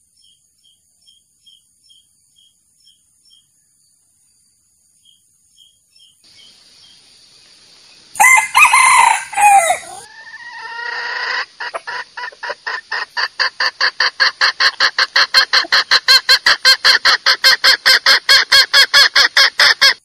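Junglefowl calls: faint, regular chirping ticks at first, then a loud crow about eight seconds in, followed by a long, fast, evenly spaced run of clucks, about three to four a second, that carries on to the end.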